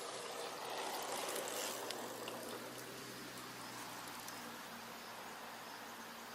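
Outdoor nature ambience: a steady, even hiss that swells a little in the first two seconds and then settles, with a faint low hum underneath.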